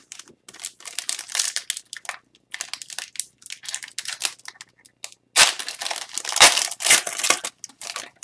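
Crinkling of a trading-card pack's foil wrapper as it is torn open and the cards are pulled out, in irregular rustles that are loudest in the second half.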